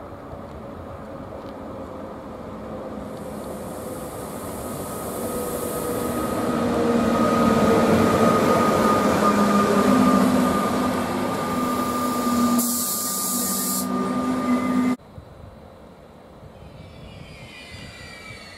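ÖBB class 1016 Taurus electric locomotive hauling Intercity coaches running in close by: a steady traction whine over wheel rumble, building to its loudest about halfway through. The sound cuts abruptly near the end to the Taurus pulling away, with faint high whining tones from its traction converters sliding in pitch as it gathers speed.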